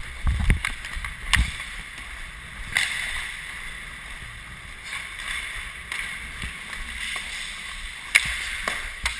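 Ice hockey skate blades scraping and carving across the ice, heard from a helmet-mounted camera, with a few sharp clacks of sticks and puck, the loudest near the end.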